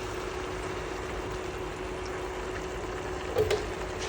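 Chicken and vegetables simmering in water and stock in a pan, a steady bubbling hiss, with a short clink about three and a half seconds in.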